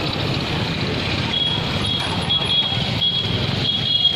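Street traffic: motorbike, scooter and auto-rickshaw engines running in a steady din. From about a second in, a run of short, high beeps repeats several times.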